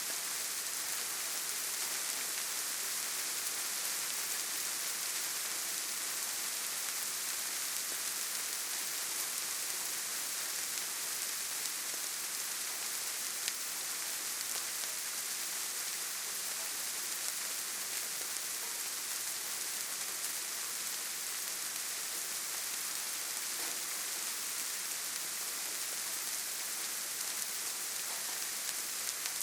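Steady light rain pattering on leaves and ground: an even soft hiss with scattered small drop ticks.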